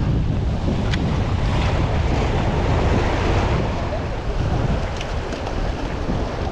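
Wind buffeting the microphone over small waves washing and splashing against the jetty rocks, a steady rushing noise with a heavy low rumble.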